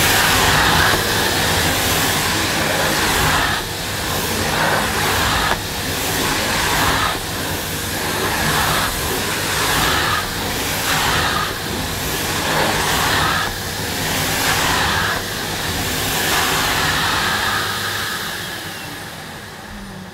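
Numatic Nuvac VNR200 tub vacuum cleaner's 620 W motor running at full suction with the hose vent closed, its floor nozzle pushed back and forth over short-pile carpet so that the suction note swells and dips with each stroke. Near the end the motor is switched off and winds down with a falling hum.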